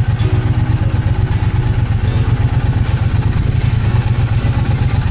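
Motorcycle engine running at low revs, a steady, fast low pulsing throughout.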